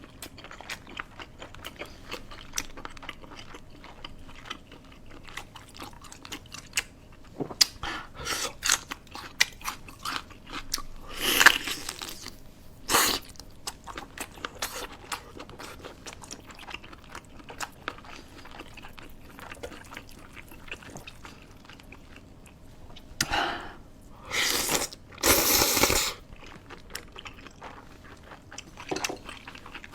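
Close-miked eating: chewing and crunching food, with many small wet clicks and several louder crunching bursts, the loudest near the end.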